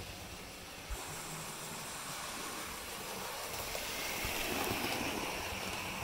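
Model railway Prairie tank locomotive hauling a coach along the track: steady motor and wheel noise that grows louder around four to five seconds in as the train passes close.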